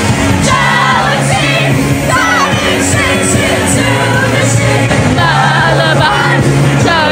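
Loud pop music with singing, a steady bass line under it, and partygoers singing along, shouting and whooping.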